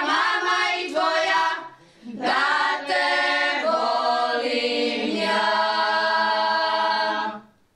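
Women's folk singing group singing a traditional Šokac song unaccompanied, several voices together. There is a short break about two seconds in, and the song ends on a long held note that stops near the end.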